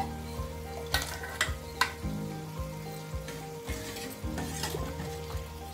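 Hot oil tempering sizzling as it is tipped into a steel pot of tamarind rasam, then a steel ladle stirring the rasam. There is a loud clack right at the start, and the ladle knocks sharply against the pot about one, one and a half and two seconds in.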